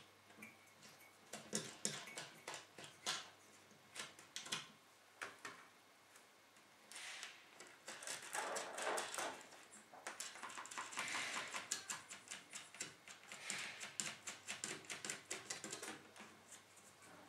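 Faint clicking and light metal rubbing as small nuts are threaded by hand onto the mounting screws of a CPU water-block backplate on a motherboard.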